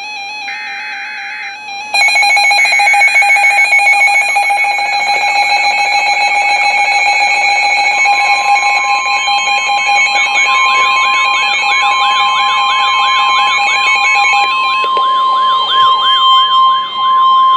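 Emergency Alert System alert on NOAA Weather Radio. It opens with a short burst of the screeching digital SAME header data. A steady buzzy attention tone follows, and about eight seconds in a pure 1050 Hz warning alarm tone joins it. Fast rising-and-falling siren sweeps grow louder through the second half.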